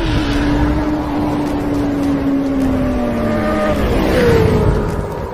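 Sound-effect sport motorcycle engine held at high revs over a rushing noise. Its pitch sinks slowly, then drops away between about three and a half and four and a half seconds in.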